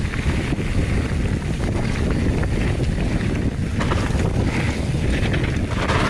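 Wind buffeting the microphone of a camera on a mountain bike riding fast down dirt singletrack: a steady, loud low rumble, with tyre and trail noise mixed in.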